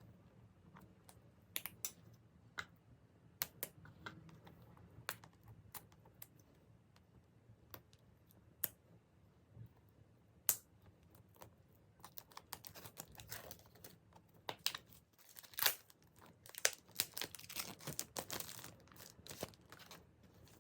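Hands handling a smartphone's retail box and packaging: scattered small clicks and taps of cardboard and plastic. The clicks are sparse at first and come in a denser run of handling after about twelve seconds.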